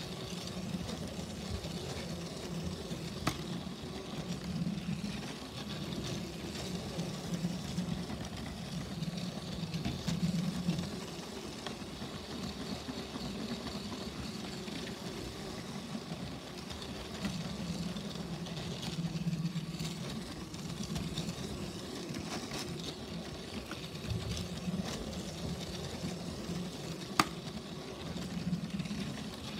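Motorised Lego train running along plastic track: the small electric motor whirs steadily, its pitch wavering, with two sharp clicks.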